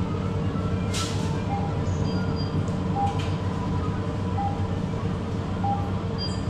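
Supermarket ambience: a steady hum of open refrigerated display cases and air handling, with faint short electronic tones now and then and a brief hiss about a second in.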